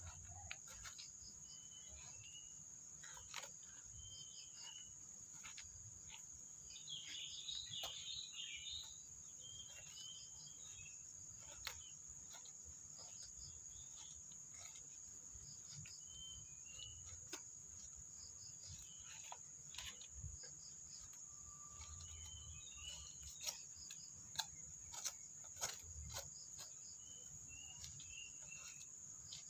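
Faint, steady high-pitched insect chorus, with scattered small chirps and a few sharp clicks or knocks, several close together near the end.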